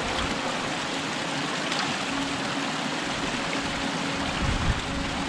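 A small mountain stream running and splashing over rocks, a steady wash of water noise.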